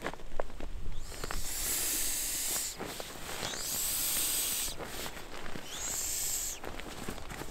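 Air hissing out of an inflatable sleeping pad's valve in three rushes as the pad is pressed and rolled up to deflate it, with fabric rustling in between.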